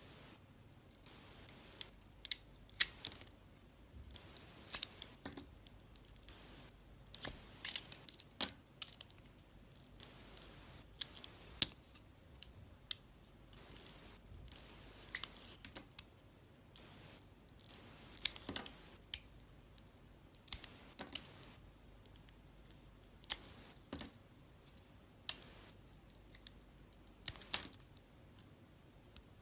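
A blade cutting into dry soap: crisp crackling snaps in short irregular clusters, a second or two apart.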